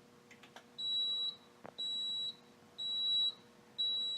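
Fire alarm control panel's built-in sounder beeping in alarm: a high-pitched tone pulsing on and off about once a second, four beeps, set off by the panel's drill button.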